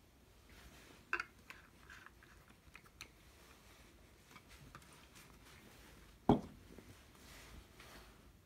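Faint handling noises at a wooden workbench: a few small clicks, then one sharp knock about six seconds in, as the metal can of Danish oil is handled and put down.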